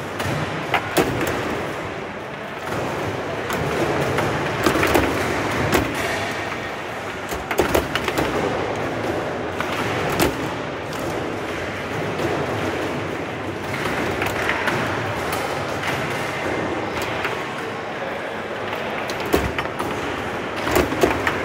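Foosball table in play: the ball is struck and passed by the plastic rod figures, giving irregular sharp knocks and clacks over steady background noise.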